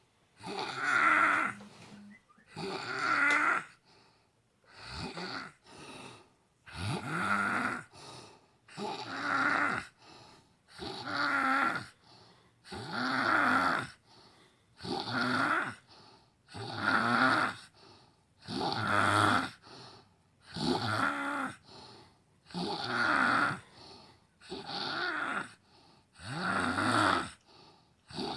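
A woman snoring in her sleep, one loud rasping snore about every two seconds with softer breaths between.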